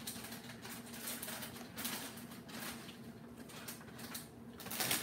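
Faint sizzling and crackling of baby spinach going into a hot skillet of brown butter.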